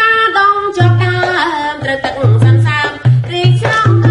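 Traditional Khmer folk music: a bowed two-string fiddle and singing carry a gliding melody over a drum beating a steady rhythm, which comes in about a second in.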